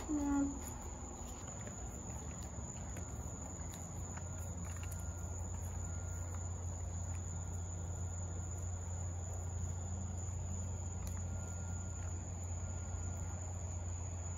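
Night insect chorus of crickets: a steady, high-pitched trill over a low steady rumble. A short squeak that falls in pitch comes right at the start.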